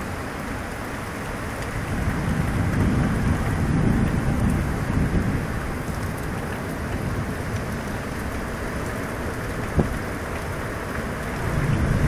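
Heavy rain and storm wind as a tornado hits, a steady wash of noise with deep rumbling gusts swelling a couple of seconds in and again at the very end. Late on there is a single short knock.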